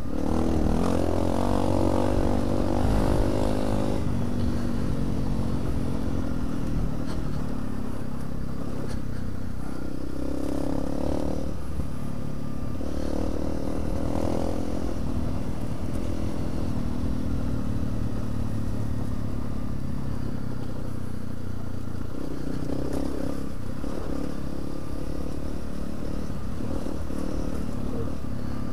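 Trail motorcycle engine running as it is ridden along a rough track, its pitch rising and falling with the throttle in several surges. Under it there is a constant low rumble of wind and road noise.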